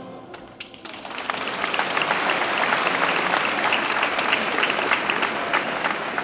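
Crowd applauding: a few scattered claps, then steady, dense applause from about a second in, easing off near the end.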